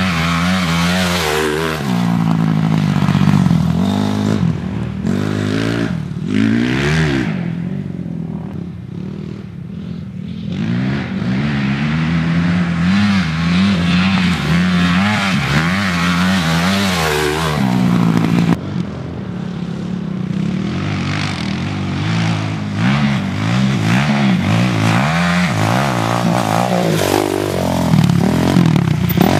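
Motocross dirt bike engines revving hard and easing off over and over, their pitch rising and falling as the riders work the throttle over the jumps. Near the end a bike passes close by at speed and is the loudest moment.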